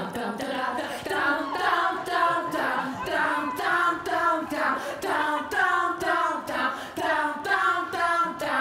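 Several women singing together without accompaniment in a quick rhythm, with short sharp knocks keeping the beat.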